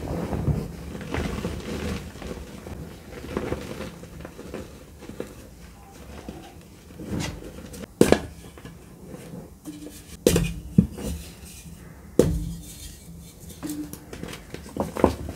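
Dry gym chalk blocks being snapped and crushed by hand over a bed of chalk powder: soft crumbling and rustling, broken by several sharp cracks as pieces break, the loudest about eight seconds in.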